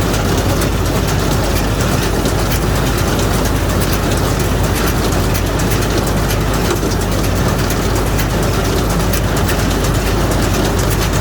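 Straw baler running: a steady engine drone with continuous fast mechanical clatter.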